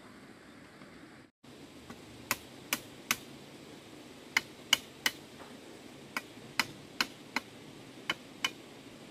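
Sharp knocks of a tool striking a bamboo chicken-coop frame: about a dozen in quick runs of two to four, starting about two seconds in, after a brief dropout in the sound.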